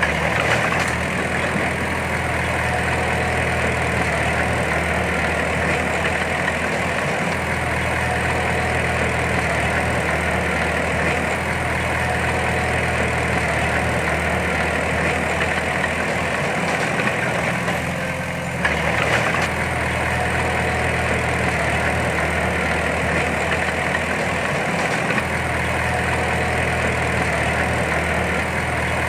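Heavy diesel engine of earthmoving machinery running steadily, with a low, even engine note; the sound dips briefly and comes back sharply about two-thirds of the way through.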